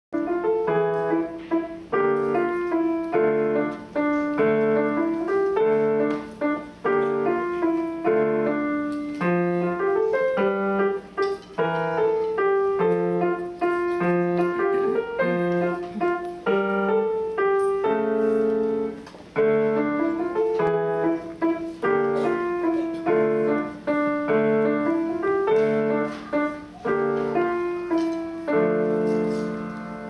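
Grand piano played solo: short chords and quick notes in a steady, even rhythm, ending on a held chord that rings and starts to fade near the end.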